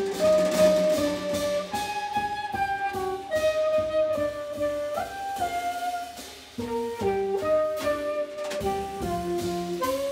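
Live jazz quartet: alto saxophone playing a melody line of held notes over walking double bass and a drum kit with cymbals.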